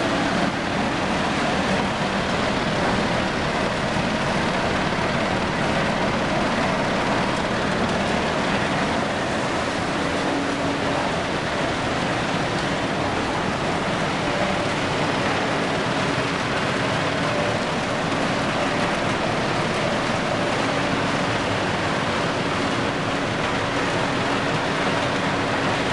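Steady din of cashew nut processing machinery running, a dense, even noise with a faint hum under it.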